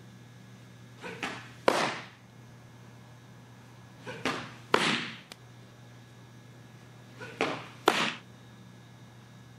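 Three off-speed fastpitch softball pitches smacking into a leather catcher's mitt, about three seconds apart. Each sharp pop of the catch comes about half a second after a softer sound as the pitch is thrown.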